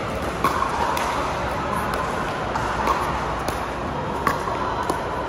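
Pickleball paddles striking a plastic pickleball in a rally: a string of sharp pops, several of them at uneven gaps of roughly half a second to a second. They sit over a steady, fairly loud hum of hall noise.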